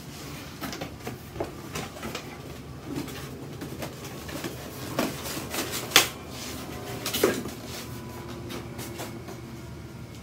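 Scattered clicks and knocks of small metal hardware and parts being handled, the bolts and pin of a newly unboxed electric tongue jack, with two sharper knocks a little past the middle.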